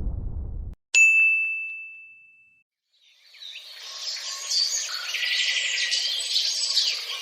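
A low rumble fades out, then a single bright ding strikes about a second in and rings for about a second and a half. From about three seconds in, a stretch of busy bird chirping follows.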